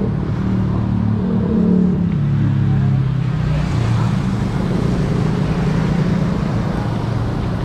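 Street traffic with small motorcycle engines passing close by, their steady hum rising and falling in pitch as they go past.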